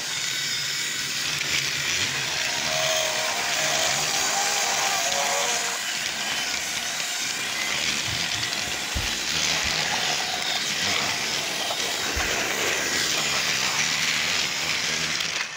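Small electric motor of a battery-powered toy train running steadily, a continuous whirring hiss, with a couple of low bumps in the second half.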